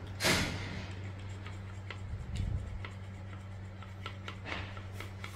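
A metal chopstick stirring milk formula in a small plastic feeding cup: irregular light ticks as it knocks the sides, with a louder scrape near the start. A steady low hum runs underneath.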